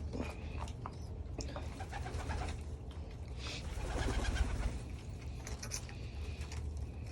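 Domestic pigeons cooing while feeding, with a few short clicks of pecking at the seed mix.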